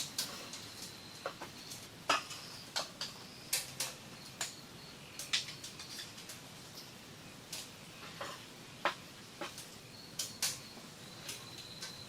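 Sharp small clicks and taps at irregular times, a few each second, over a faint steady high tone.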